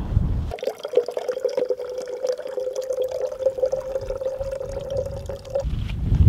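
Filtered water running in a thin stream from a Katadyn BeFree squeeze-bottle filter into a small metal pot, a steady trickle with light splashes for about five seconds. Wind noise on the microphone before and after it.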